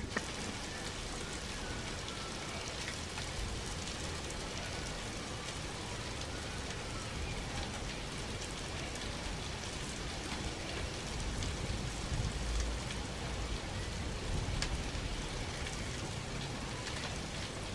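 Fish and green asparagus sizzling steadily on a gas grill's griddle plate.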